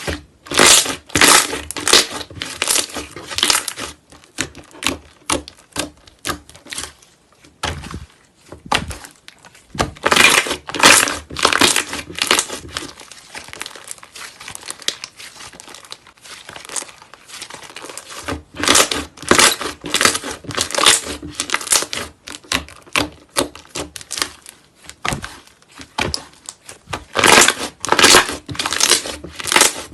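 Slime being squeezed and kneaded by hand, crackling and popping in bursts of rapid clicks, with quieter stretches between the bursts.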